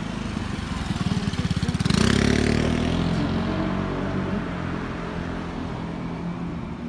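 A motor scooter passes close by. Its small engine grows louder to a peak about two seconds in, then falls in pitch and fades as it moves away.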